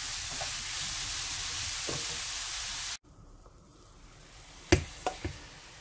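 Oyster mushrooms sizzling as they are stir-fried in a nonstick frying pan, a steady hiss that cuts off abruptly about three seconds in. Then it is quieter, with a few sharp knocks of a wooden spatula as the mushrooms are scraped out onto a plate.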